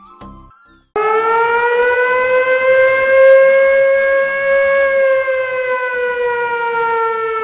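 Air-raid siren sound effect: one long wail that starts suddenly about a second in, rises a little and then slowly falls in pitch.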